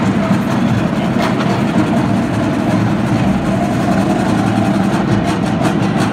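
Steady hubbub of a large stadium crowd, with a run of faint quick ticks near the end.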